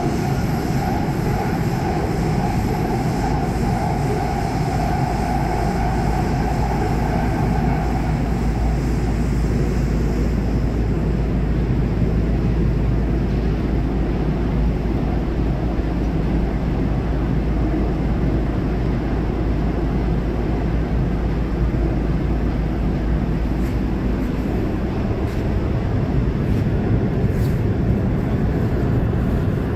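Underground metro train running through a tunnel, heard from inside the car: a steady rumble of wheels on rails. A steady whine rides over it for the first several seconds, then fades out.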